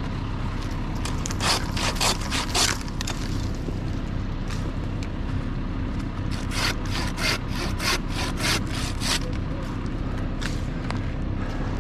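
A hand pruning saw cutting through a white oak limb: two runs of quick back-and-forth strokes, about three a second, the first near the start and a longer one in the middle. A steady low engine hum runs underneath.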